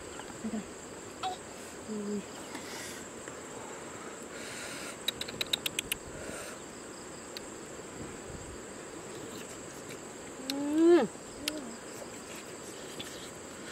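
Steady high insect chirring in the background. About five seconds in there is a quick run of clicks, and near the end a person makes a short wordless vocal sound that rises and then falls, the loudest sound here.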